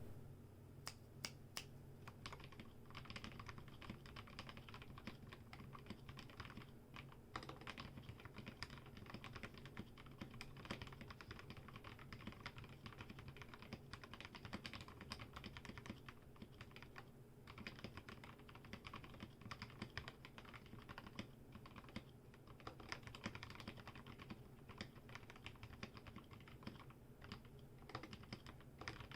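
Typing on a mechanical keyboard with lubed, filmed Gateron Yellow linear switches on an aluminium plate, under MT3-profile ABS keycaps. It is a quiet, continuous run of keystroke clacks, several a second, with a few short pauses.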